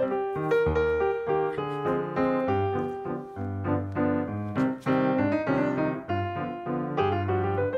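Background piano music: a melody of held notes over low bass notes.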